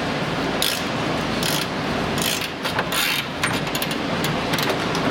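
Ratchet wrench clicking in short rasping strokes, about four in the first three seconds, with scattered metal clicks as a control-arm mounting bolt is worked loose.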